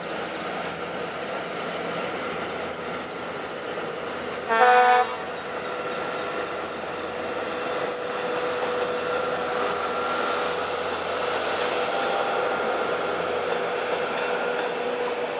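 EMEPA Alerce diesel railcar running steadily with a droning engine, sounding one short horn blast about four and a half seconds in.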